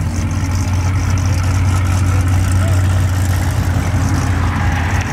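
Cadillac CTS sedan's engine running at low revs as the car rolls slowly past, a steady deep exhaust drone.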